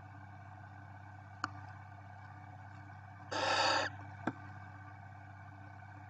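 Barn owl chick giving one short, rasping hiss of about half a second, midway. A faint click comes shortly before and just after it, over a steady low hum.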